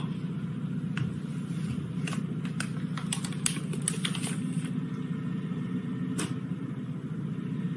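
A steady low mechanical hum with a fast even flutter, under a few faint clicks from a mouth chewing soft mochi.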